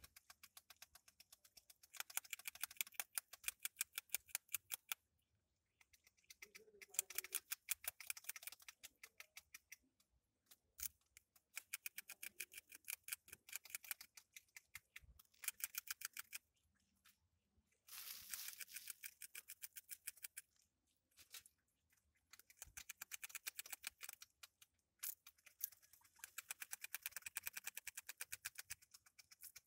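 Greater cane rat (grasscutter) chewing food with its incisors: runs of rapid, crisp crunching clicks a few seconds long, broken by short pauses.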